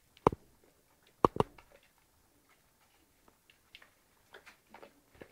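Shar pei dog mouthing an apple slice held by hand: sharp wet clicks and smacks from its mouth and teeth, three loud ones in the first second and a half, then fainter scattered smacks.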